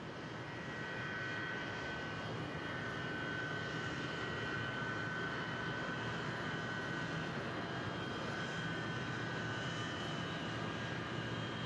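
Jet aircraft engines running: a steady rush with a thin, faint high whine, swelling a little over the first couple of seconds.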